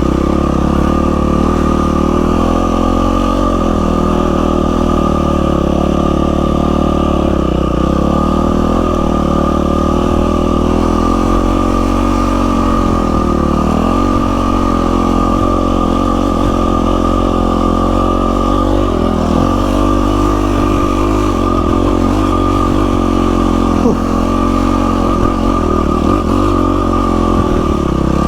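Yamaha WR450F single-cylinder four-stroke dirt bike engine running under way, its note dipping and climbing back a few times as the throttle is rolled off and on again. A steady high tone runs along with it.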